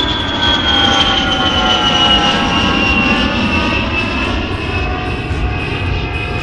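Jet aircraft engines running: a steady rumble under a high whine that slowly falls in pitch.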